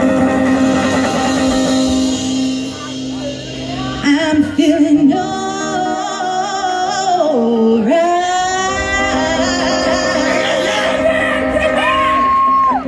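Live rhythm-and-blues band: a woman sings lead into a microphone over electric guitars and upright bass, holding long wavering notes, with a high note held steadily near the end.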